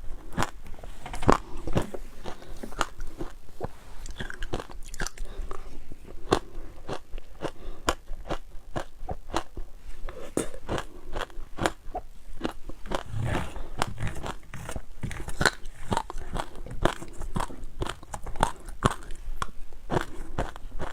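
Ice being bitten and chewed close to the microphone: a steady run of sharp, irregular crunches, several a second.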